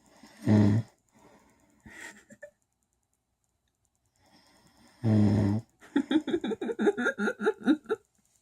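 A man snoring heavily: two loud, deep snores about four and a half seconds apart, with faint wheezy breathing between them. The second snore runs into about two seconds of rapid short pulses.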